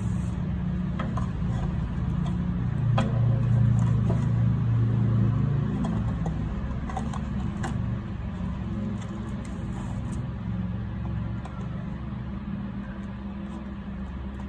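A low steady rumble that swells about three seconds in and slowly fades, with a few faint clicks and knocks of LiFePO4 cells and wires being pressed into a plastic battery case.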